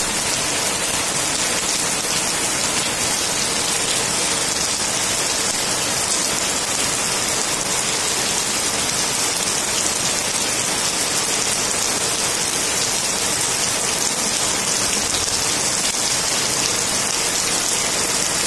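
Heavy rain pouring steadily onto a waterlogged yard, an even, unbroken hiss of falling and splashing water.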